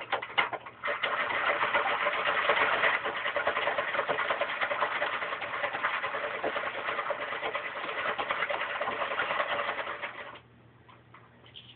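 Antique Stitchwell child's toy chain-stitch sewing machine running, a fast steady clatter of needle and mechanism as it stitches through denim. It stops abruptly about ten seconds in, followed by a few light clicks.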